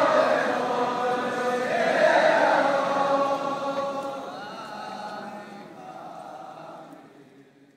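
A choir chanting in held notes as background music, fading out over the last few seconds.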